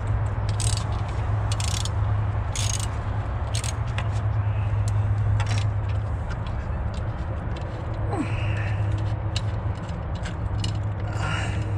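Metal hand tools and engine parts clinking and scraping at irregular intervals during work in an engine bay, over a steady low hum.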